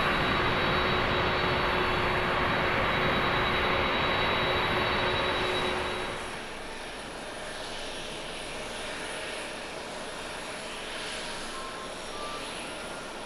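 Boeing 747-400 jet engines at takeoff power as the airliner climbs away: a loud, steady jet noise with a thin whining tone. About halfway through it cuts to a quieter, steady hiss of a Boeing 787-9 Dreamliner on final approach.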